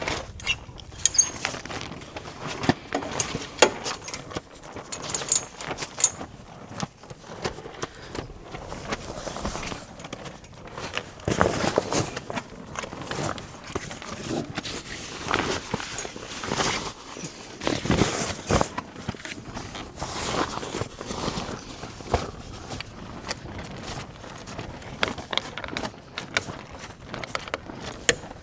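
Irregular knocks, clicks and rustling of fabric and gear being handled, with footsteps, as a camper tent is closed up and packed away.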